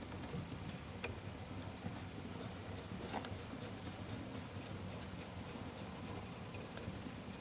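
Light metallic clicks and scraping as axle-flange bolts are threaded in by hand on a Ford F250's full-floating rear axle hub, with a few sharper ticks near the start, about a second in and about three seconds in.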